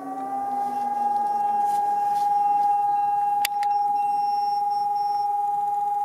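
Civil-defence alarm siren winding up and holding a steady tone, while a second, lower siren winds down in the first couple of seconds. A sharp click comes about halfway through.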